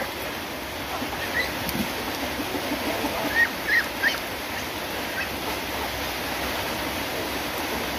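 Steady rain hiss, with a handful of short, high-pitched calls from a flock of chickens and Muscovy ducks feeding on rice grain. The loudest calls come in a quick run about three to four seconds in.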